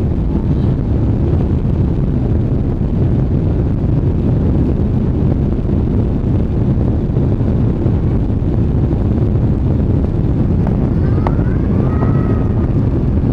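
Steady low rumble of a Boeing 777-300's jet engines and airflow, heard inside the passenger cabin.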